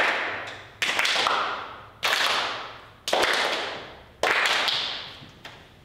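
Five sharp strikes about one a second, each ringing out and fading over nearly a second before the next.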